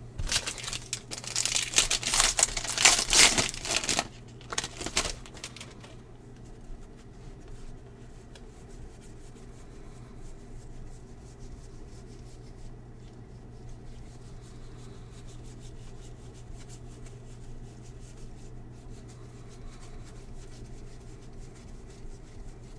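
A baseball card pack's wrapper being torn open and crinkled for about the first five seconds. After that only a low steady hum remains.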